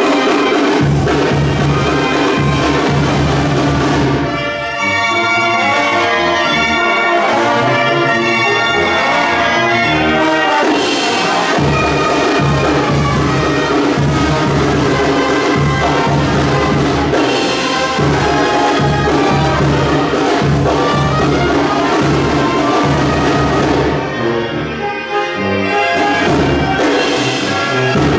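A brass band plays, with a pulsing bass line under the brass melody. There is a short break in the phrase about four seconds in.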